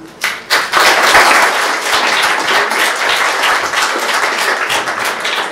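Audience applauding: the clapping starts a moment in, swells quickly to a dense, steady sound, and holds.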